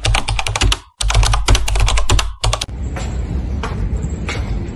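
Rapid clatter of keyboard typing in two runs that stop about two and a half seconds in, followed by a few isolated clicks over a low rumble.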